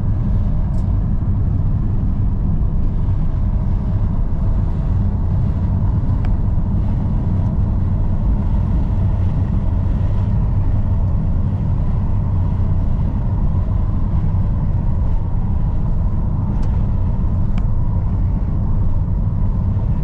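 Steady low rumble of a car driving along at speed, heard from inside the cabin: engine, tyre and wind noise.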